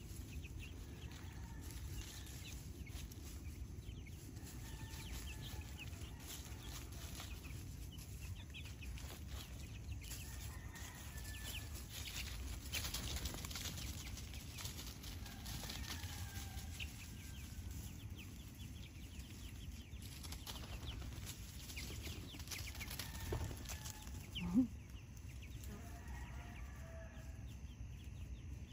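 A small flock of hens and young chickens calling softly now and then as they forage, with faint rustling in dry leaf litter. One louder, short call stands out near the end.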